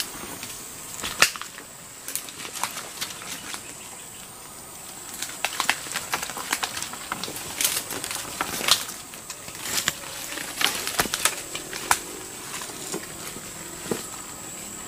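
Footsteps through forest undergrowth: irregular crackling and snapping of dry leaves and twigs, busiest in the middle, over a steady high-pitched insect drone.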